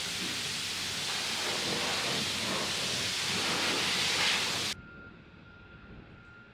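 Self-serve car wash pressure wand spraying water onto a truck: a steady loud hiss that swells a little, then cuts off abruptly about four and a half seconds in. What follows is a much quieter background with a faint steady high whine.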